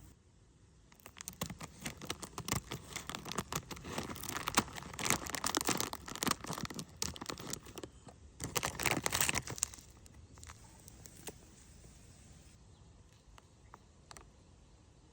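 Dense crinkling, rustling and tearing sounds of material being handled, starting about a second in, with two louder spells, then dying away to a few faint clicks after about ten seconds.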